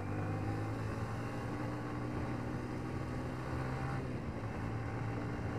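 Yamaha Vixion R 155 VVA motorcycle's single-cylinder engine running steadily while the bike rides along, with road and wind noise. The engine note shifts slightly about four seconds in.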